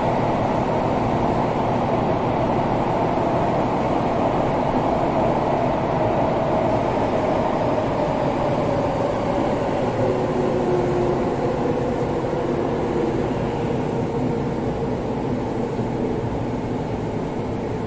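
Running sound inside a Sotetsu 12000 series EMU motor car, as the train slows for a station: the Mitsubishi IGBT-VVVF inverter's whine falls slowly in pitch over the rumble of wheels on rail. It grows a little quieter near the end.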